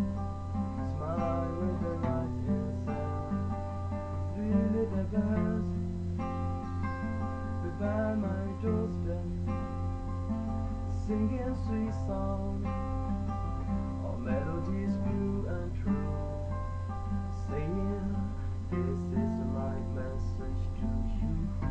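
Acoustic guitar playing, strummed chords mixed with picked notes, without vocals.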